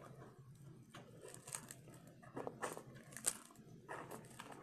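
Close-up eating sounds of someone chewing hard-fried corn taco shells: faint crunching with a few sharp crackles, the sharpest a little over three seconds in.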